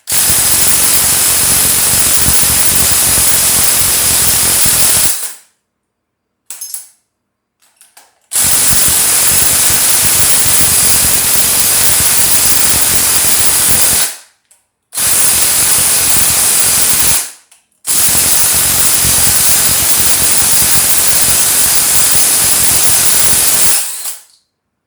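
Compressed air hissing from a pneumatic shop tool in four long bursts of several seconds each, with short silences between them.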